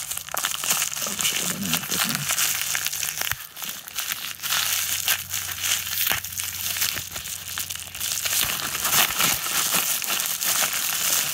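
Plastic packaging crinkling and crackling as gloved hands pull and tear open a padded plastic mailer, a dense run of small crackles throughout.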